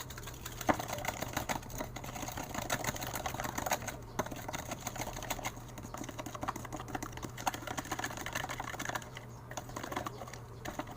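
Melted slime being mixed with borax activator: a continuous run of small sticky clicks and squelches.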